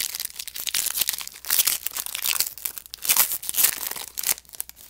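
A foil trading-card pack wrapper crinkling and tearing as it is handled and ripped open, in repeated crackly bursts that stop shortly before the end.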